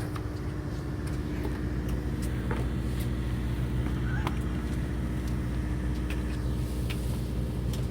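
Steady low engine hum aboard a small fishing boat, running evenly with a constant drone, with a few faint ticks over it.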